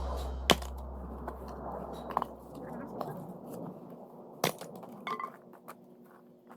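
Axe splitting firewood: sharp cracks and knocks of wood, a loud one about half a second in and another about four and a half seconds in, with smaller clicks between. Drum-backed music fades out at the start.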